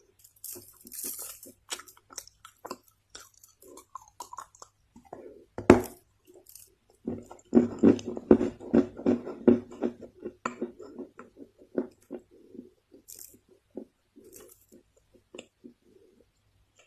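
Chinese loess clay being bitten and chewed close to the microphone: one sharp crunching bite about six seconds in, then a quick run of soft crunches that thins out to scattered chews near the end.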